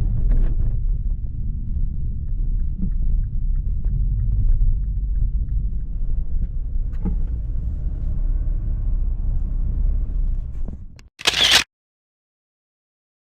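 Low, steady vehicle rumble with a few faint knocks, cutting off abruptly about eleven seconds in, followed by a single camera-shutter click sound effect.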